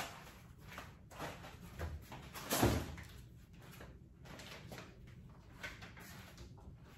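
Kitchen items being handled and set down while tidying up: a series of light knocks and clatters, the loudest a thud about two and a half seconds in.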